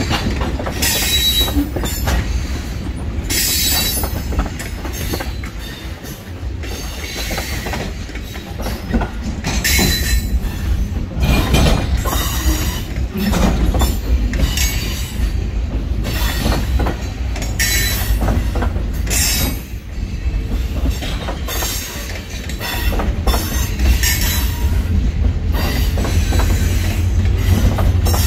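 Freight cars (tank cars, then refrigerated boxcars) rolling past on steel wheels, with a steady low rumble. Short squeals and screeches from the wheels on the rail come again and again every few seconds.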